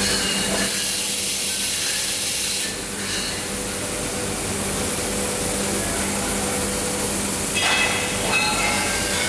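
Machining-cell noise: a steady high hiss over a low hum, with squealing tones near the start and again near the end as the robot works the cast part at the pneumatic tooling.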